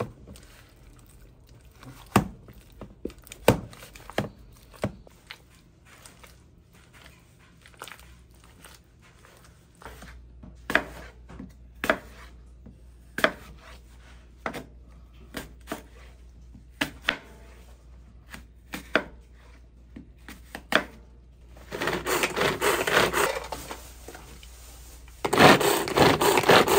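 Work sounds at a fish-shaped bread (bungeoppang) stall: scattered sharp clicks and knocks of tools against the baking molds, then two longer, louder stretches of rough scraping noise near the end.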